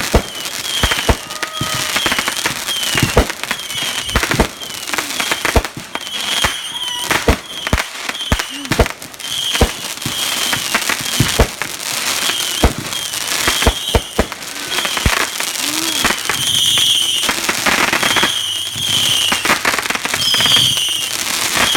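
Consumer fireworks going off in a long, rapid, irregular series of sharp bangs and pops, with short high-pitched chirps between them.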